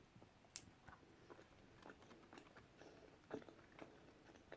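Very quiet eating: faint chewing with a few soft, scattered clicks.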